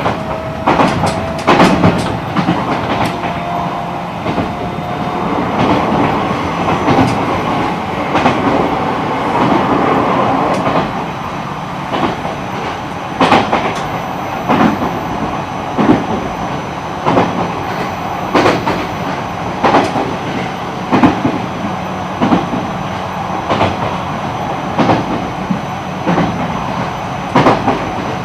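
Running sound inside an E129 series electric multiple unit's motor car: the steady rumble of the train under way, with the wheels clacking over rail joints about once a second. A faint rising whine from the Toyo IGBT inverter-driven traction motors is heard in the first few seconds.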